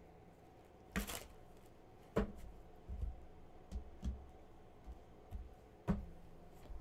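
A tarot deck being handled and tapped on a table: a series of separate sharp clicks and soft knocks, roughly a second apart.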